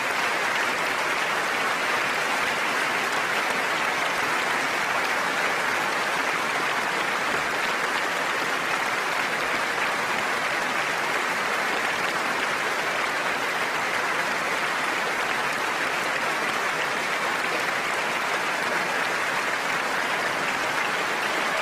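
A packed concert audience giving a huge round of applause, steady and unbroken.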